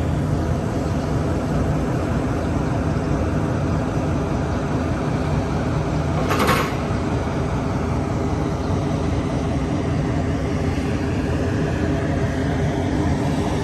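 Diesel engine of heavy construction machinery running steadily with a low drone. There is one short sharp noise about six and a half seconds in.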